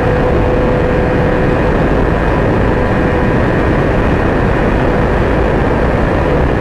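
Sport motorcycle at very high speed, heard from the rider's camera: loud, even wind rush with the engine holding one steady note.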